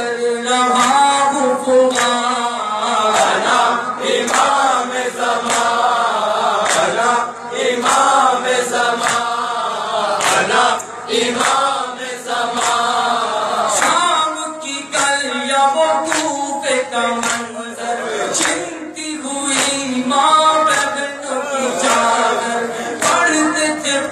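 A nauha, a Shia lament, sung live by a male reciter through a microphone, with a group of men joining in chorus. Repeated sharp slaps run under the singing, which are hands beating on chests in matam.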